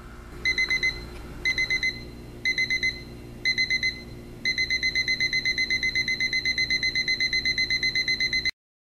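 Equity 65901 quartz alarm clock's ascending alarm beeping: short groups of about four rapid beeps once a second, then after about four seconds a continuous run of rapid beeps, stopping abruptly near the end.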